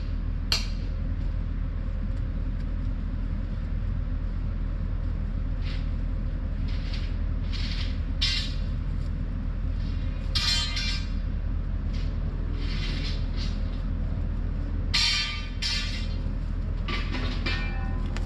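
Diesel engine of a piece of heavy equipment running steadily, with short metallic rattles and scrapes breaking in every few seconds.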